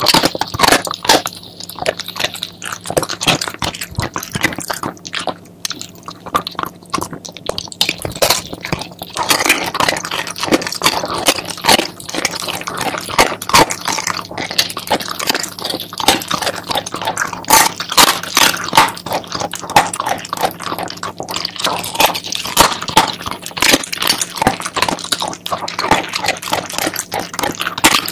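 Shiba Inu chewing and biting a chicken foot: a continuous, irregular run of crunches several times a second as it works the foot's bones and skin.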